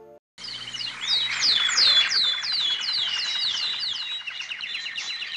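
Birds chirping: a quick, busy run of short chirps, each sweeping down in pitch, several a second, starting a moment in after a brief silence.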